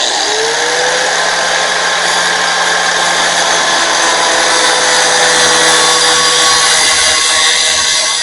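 Cutoff wheel switched on, its whine rising as it spins up over the first second, then running steadily and loudly while cutting into the steel housing of an oil filter.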